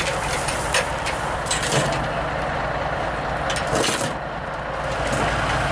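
Steel tie-down chains and binders clinking and rattling as they are undone, with a louder clatter about four seconds in, over the steady running of an idling Kenworth diesel semi truck.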